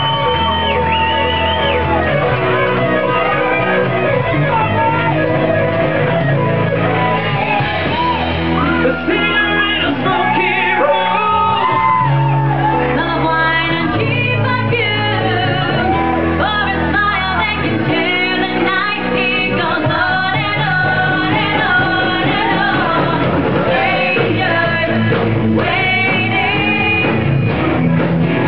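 Live band music: electric guitar and a lead vocal singing over low bass notes that change about every two seconds.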